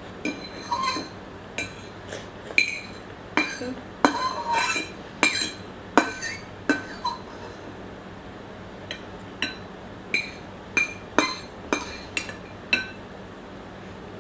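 Eating utensils clinking against a dish in a series of sharp, ringing taps, with a pause of about two seconds a little past the middle.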